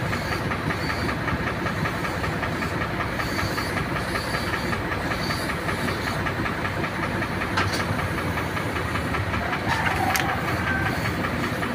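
Steady hiss of a suction-feed air spray gun spraying paint onto a truck body, over a steady machine running with a fast pulsing. Two sharp clicks come in the second half.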